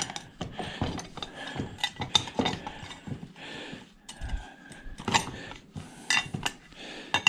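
Irregular metal clicks, scrapes and clinks of a narrow screwdriver prying a part loose from a scrapped ice maker, with a few sharper knocks in the second half.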